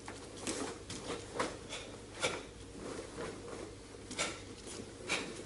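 Irregular sharp snaps and thuds, about two a second, from two karateka performing blocks, punches and a kick in bare feet on a wooden floor: gi cloth snapping with each technique and feet striking and sliding on the boards.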